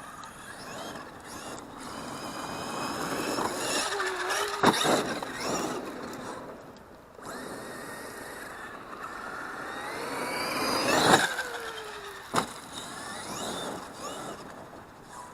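Electric RC car's motor and drivetrain whining up and down in pitch as it accelerates and slows, over the rush of tyres on dirt. Sharp knocks from landings or impacts come about five seconds in and twice more around eleven and twelve seconds.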